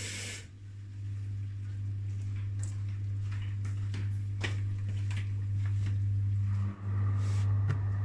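Miele Softronic W3523 washing machine running with a steady low hum that comes in suddenly after a loud burst at the start, with scattered sharp clicks and splashes. There is a brief dip about two-thirds of the way through, after which the hum carries on with some higher tones added.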